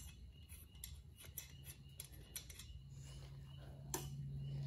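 Faint, light metallic clicks and ticks of wheel nuts being spun off the studs of a small ATV's rear wheel by hand, over a low steady hum.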